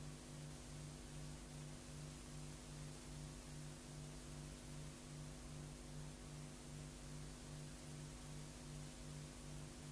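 Faint steady hiss with a low hum that pulses about three times a second: the background noise of an old film soundtrack.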